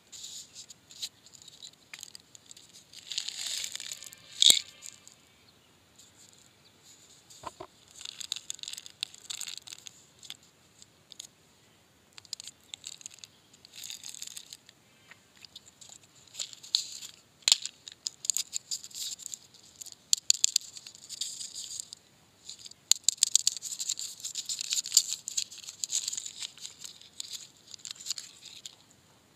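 Plastic candy wrappers crinkling and rustling as they are opened by hand, in irregular bursts with scattered sharp clicks. The loudest crackle comes about four and a half seconds in.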